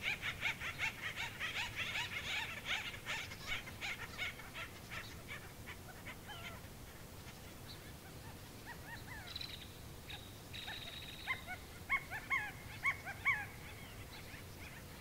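Background animal calls. A rapid run of sharp calls fades out over the first five seconds. Later comes a brief steady high note, then a handful of short hooked calls near the end.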